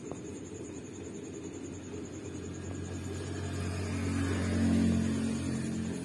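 A low motor hum swells and fades, loudest about five seconds in, over a steady low background noise. A few faint clicks come from a rose-ringed parakeet cracking roasted chana in its beak.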